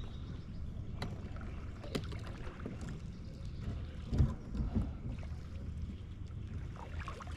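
Kayak being paddled across the water: a steady low rumble of water and wind on the microphone, with a few light clicks and two short louder splashy bursts about four seconds in.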